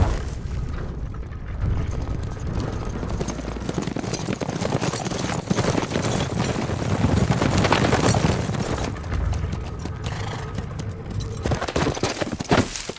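Horses galloping, with revolver gunfire and film score music mixed in.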